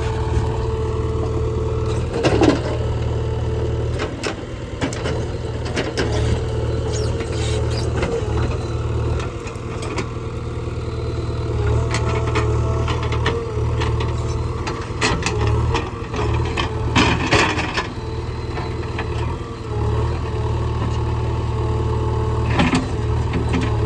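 JCB 3DX backhoe loader's diesel engine running steadily while working, with scattered knocks and clatter as the bucket works against stones and earth; the loudest clatter comes about two seconds in, around seventeen seconds and near the end.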